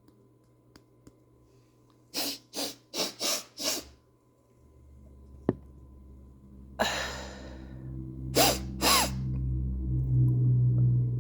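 Five quick, sharp sniffs through the nose in a row, drawing black pepper up the nostrils, then a long breath out and two short sharp breaths as the pepper starts to burn. A single click comes between them, and a low steady hum builds up underneath in the second half.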